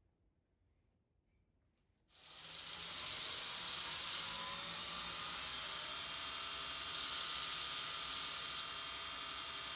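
Near silence, then about two seconds in a belt grinder comes in suddenly: a steady hiss of a workpiece being ground against the abrasive belt, with a faint motor whine underneath.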